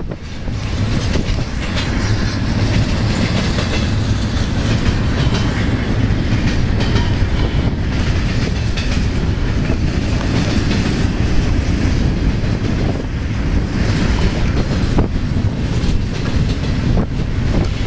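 Union Pacific intermodal freight train rolling past, with a steady low rumble and wheels clicking over the rail joints.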